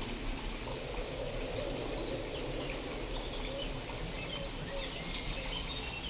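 Steady rain falling, reworked with sound design to sound otherworldly. From about halfway through, faint short high chirps sound over it.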